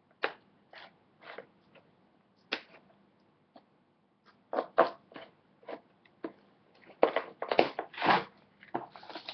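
A mail package being opened by hand: scattered crinkles and snaps of packaging, a few at first, then coming thick and fast in the second half.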